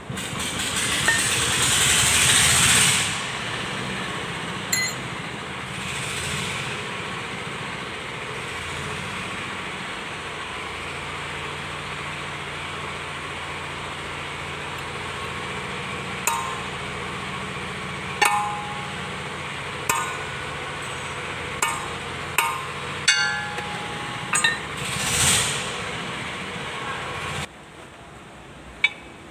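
Sharp metallic clinks of steel tools against the final-drive gear and axle nut of a Kubota L1-185 tractor's rear axle. There are about ten in the second half, each ringing briefly, over a steady background noise. The first few seconds hold a loud rushing hiss.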